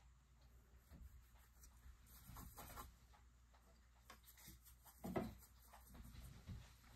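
Faint strokes of a paintbrush dragging paint across a painting board, with a short soft knock about five seconds in.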